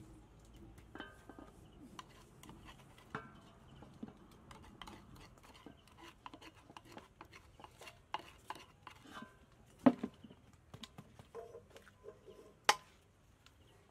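Metal spoon scraping inside a mortar and clicking against a large aluminium bowl while chili paste is spooned onto raw fish: scattered small clicks and scrapes, with two sharp clinks near the end, the later one ringing.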